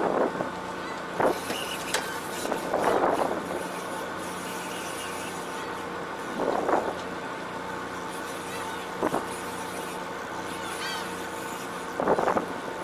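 Fishing boat's engine running with a steady hum, with about six short, louder rushes of noise breaking over it at irregular intervals.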